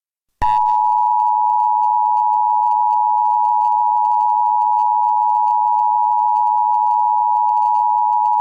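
Emergency Alert System attention signal: one loud, steady tone near 1 kHz, starting about half a second in and held unbroken for about eight seconds, the signal that announces a spoken emergency message.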